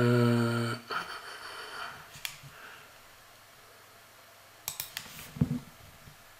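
A man's voice holding a short hesitation sound, then a few faint separate clicks and a low thump, the clicks typical of a computer mouse.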